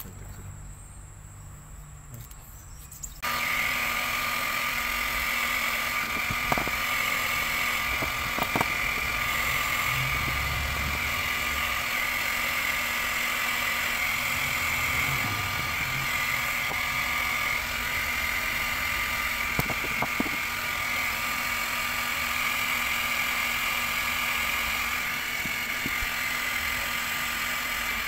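Plastic-welding hot air gun switched on about three seconds in and blowing steadily with a high whine, heating the scratched plastic kayak hull so the scratches can be smoothed.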